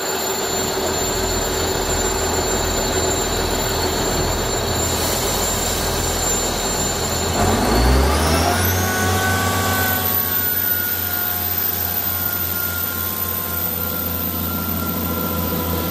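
Class 158 diesel multiple unit standing with its diesel engines running, then throttling up about seven seconds in as it pulls away. A rising whine and a surge of engine noise come with the start, settling into a steady, pitched engine note as it accelerates.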